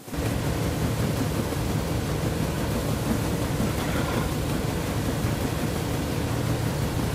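Steady rumbling, rushing noise, strongest in the low end, starting abruptly after a cut.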